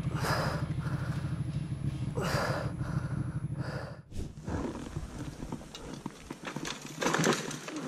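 Motorcycle engine idling with a low, fast pulse, under loud rushing breaths every second or two. About four seconds in it cuts to quieter outdoor noise with scattered clicks and a short rushing burst near the end.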